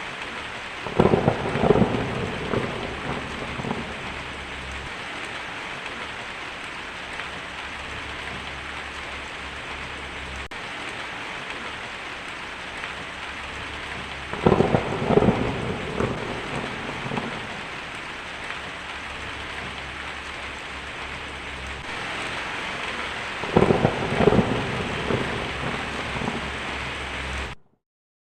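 Heavy rain drumming steadily on a tin roof, with three peals of thunder: one about a second in, one midway and one near the end. Each starts with a sharp crack and rolls on for a few seconds. The sound cuts off suddenly just before the end.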